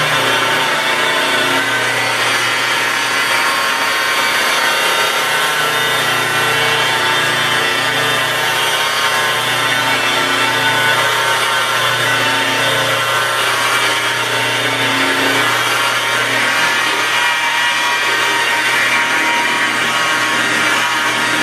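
Electric buffer running steadily, its soft black foam pad spinning on car paint with swirl-mark remover, the final fine-polishing stage.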